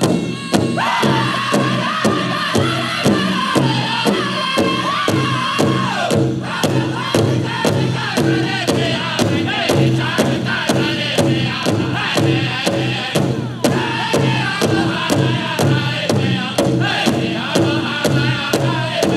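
Powwow drum group singing in high, chanting voices over a steady pounding of a big powwow drum, about two to three beats a second. A high lead phrase comes in about a second in, the voices stepping down in pitch over several seconds, and the song climbs high again near the end.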